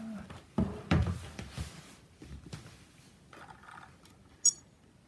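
Plastic parts of a scale-model RC helicopter being handled: a cluster of knocks and rattles about a second in, scattered small clicks, and one sharp, bright click near the end.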